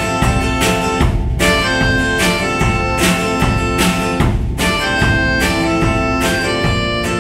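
Instrumental break of a live folk-rock song: acoustic guitar strumming over a small drum kit of snare, cymbal and bass drum, keeping a steady beat.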